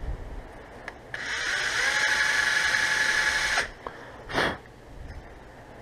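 Handheld power drill with a small bit boring an eye hole in a wooden popper lure body: it runs steadily for about two and a half seconds, starting about a second in with its pitch rising briefly as it spins up, then stops. A short burst follows about a second later.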